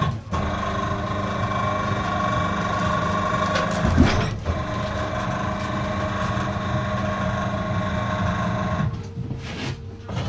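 Tyre changer's turntable motor and gearbox running with a steady whine while a tyre's bead is worked onto an alloy rim, with a loud thump about four seconds in. The motor stops about nine seconds in.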